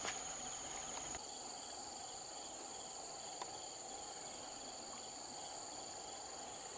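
Steady, high-pitched drone of insects in the riverside grass, with a second insect tone joining about a second in and faint rhythmic chirping beneath. A single faint click about three and a half seconds in.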